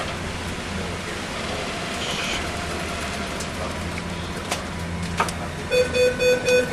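A steady low hum under a noisy background, with a few sharp knocks. Near the end a rapid beeping tone starts, several short beeps a second.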